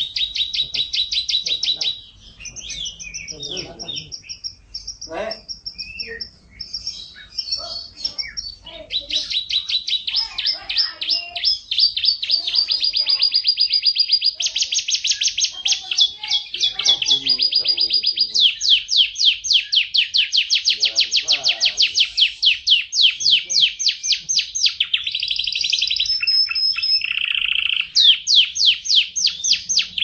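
Red canaries singing: long runs of fast, high-pitched trills and rolls broken by short pauses between phrases.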